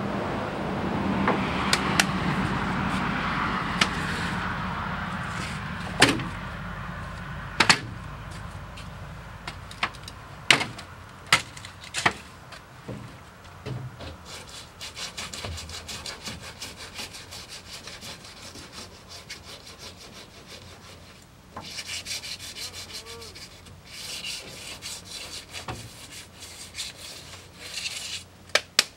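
Hand-sanding feather-fill primer on a truck cab with 1000-grit paper: bursts of quick back-and-forth rubbing strokes through the second half. Earlier, a rushing noise fades out over the first several seconds and a few sharp knocks sound.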